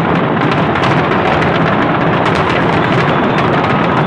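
Dense fireworks barrage from barge-launched shells: many bursts at once, a continuous din of overlapping bangs and crackling with no let-up.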